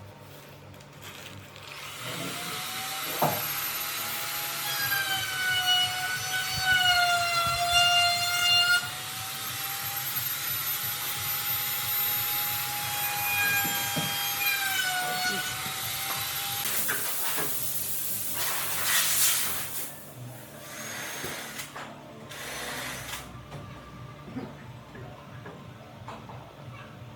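Electric power tool motor running at a steady high whine for about fifteen seconds, its pitch dipping for a while as it bites into wood. A few seconds of hissing follow, then quieter work noises.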